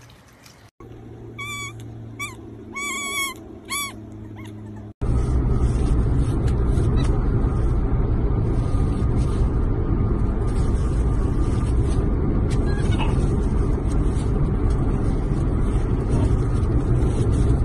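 Steady low road and engine noise inside a moving car's cabin, starting suddenly about five seconds in. Before it comes a short series of high, bending animal chirps.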